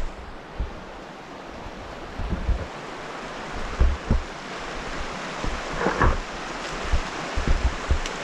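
Wind on the microphone: a steady rushing noise broken by irregular low thumps of gusts hitting the mic.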